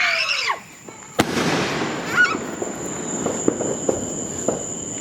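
Backyard consumer fireworks: a sharp bang about a second in, followed by a few seconds of fading crackling with scattered small pops.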